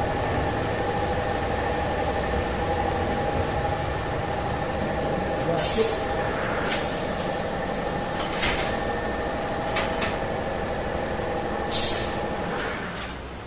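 Generator (genset) engine running steadily with a droning hum, fading away near the end. Several short, sharp knocks or hisses cut in over it, the loudest about six and twelve seconds in.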